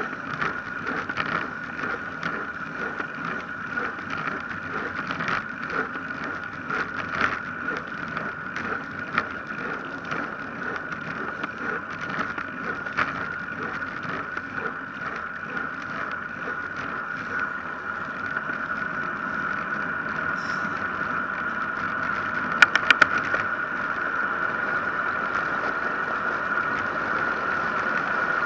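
A road bicycle rolling downhill on asphalt, heard from the bike: a steady rush of tyre and wind noise with a constant whine, broken by small rattles and knocks from the rough, cracked road surface. It grows louder in the second half, and a quick run of sharp clicks comes a little over twenty seconds in.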